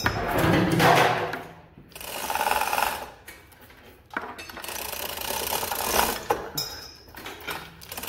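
A hand chain hoist being pulled to lift a heavy snowplow: its chain rattles and the hoist's ratchet and gears clatter in several pulls, with short pauses between them.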